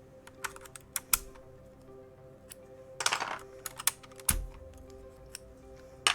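Irregular plastic clicks and clacks from a mechanical keyboard with brown switches as its keys and keycaps are handled, with a short scrape about three seconds in and a louder dull knock just after four seconds. Soft background music runs underneath.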